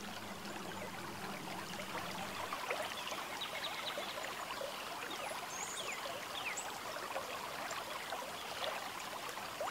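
Faint background ambience: an even, watery-sounding hiss full of light crackling ticks, with a few brief high chirps and a low hum that fades out about two seconds in.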